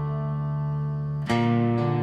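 Instrumental break in a dark country song: a guitar note rings on, then a new note is struck just over a second in and sustains.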